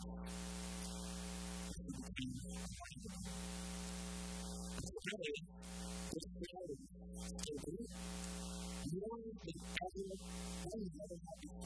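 Steady electrical mains buzz: a low hum with a row of higher overtones that does not change. Over it a man's voice comes through faintly at times, partly drowned by the buzz.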